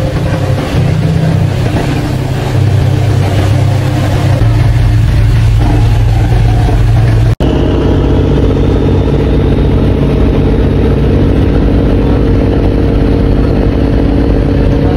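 Fishing boat's diesel engine running with a loud, steady drone, heard from on board. About seven seconds in, the sound drops out for an instant at a cut, and afterwards the engine hum is steady again but higher in pitch.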